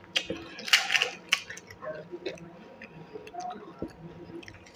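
Crisp hollow wheat-flour puri shells crackling loudly about a second in as they are cracked open by hand, then light clicks and scrapes of a steel spoon scooping mashed pea filling into a puri.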